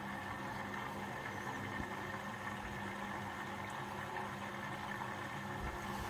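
Bosch front-loading washing machine running its service test program after an F21 motor fault code was cleared: a steady mechanical hum with a fainter higher whine.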